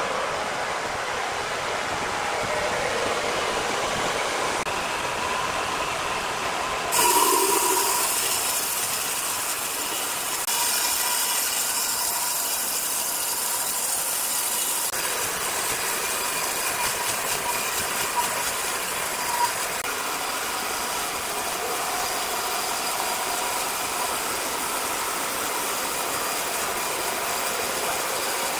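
Large horizontal band sawmill running with its blade cutting lengthwise through a big hardwood log: a steady machine noise with a hiss, its character shifting abruptly a few times.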